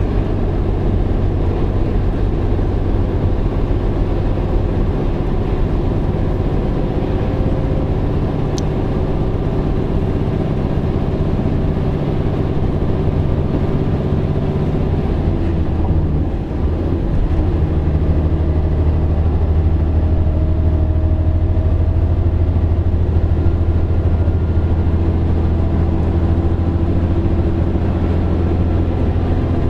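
A KiHa 147 diesel railcar under way, heard from inside the passenger car: its DMF15HSA diesel engine drones steadily under the rumble of wheels on rail. About halfway through the sound dips briefly, and afterwards the engine's drone is stronger.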